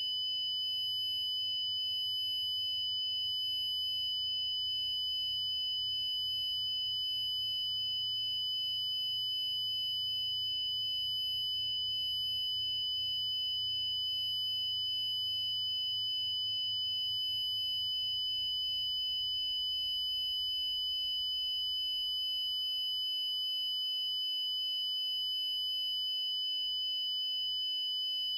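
Continuous electronic sine-tone alert sound of the Emergency Alert System kind: two high pitches held together, steady and unchanging throughout.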